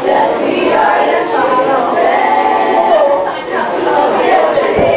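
A group of students singing together without accompaniment, a song in Filipino.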